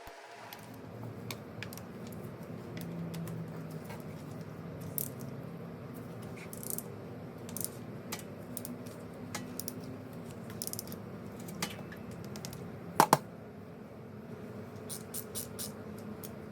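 Small irregular metallic clicks and clinks of a 14 mm wrench working the oil drain plug back in, with two sharp clinks about 13 seconds in, over a steady low hum.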